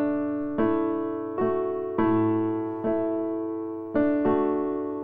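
Soft background piano music: slow notes and chords, struck roughly every three-quarters of a second, each fading before the next.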